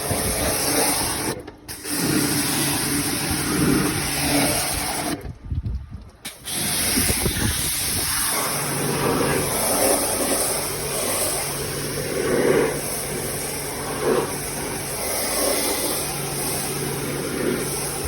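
Air-conditioner condensing unit running: a steady low hum with an even hiss over it, cutting out briefly twice in the first few seconds.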